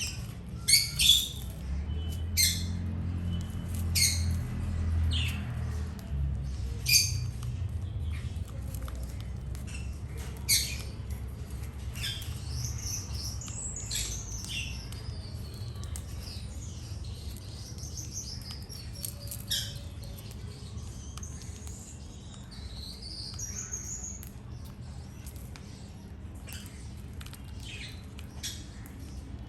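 Small birds calling: sharp, short chirps for the first ten seconds or so, then a run of whistled notes gliding up and down, over a low steady rumble.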